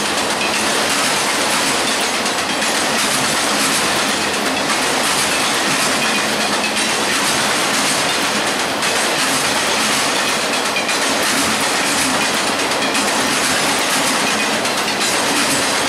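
Freight train's cars rolling past at speed: a steady rush of steel wheels on rail, with regular clacks as the wheels cross rail joints.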